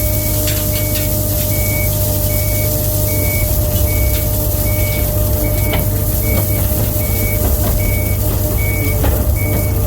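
Skid steer engine running steadily while its reversing alarm beeps at an even pace, just under two beeps a second, with a few sharp metallic knocks.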